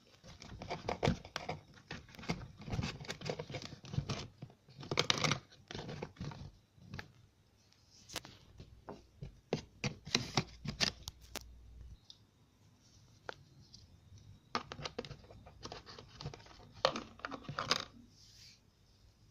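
Bunches of rustling, scraping and tapping from a homemade cardboard-and-plastic vending machine being handled, with quieter gaps between.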